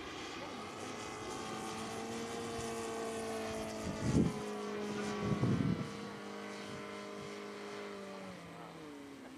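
Horizontally opposed 53cc four-stroke gasoline engine of a large-scale RC model airplane, running steadily with its propeller. Its pitch drops slightly near the end. Two brief loud rushes of noise come about four and five and a half seconds in.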